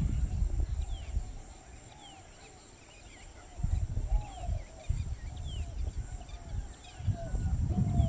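Wild birds calling outdoors: many short, falling chirps repeat, over lower wavering call notes. Irregular low rumbling sits underneath, dies down for a couple of seconds, then returns and builds near the end, and a steady high hiss runs throughout.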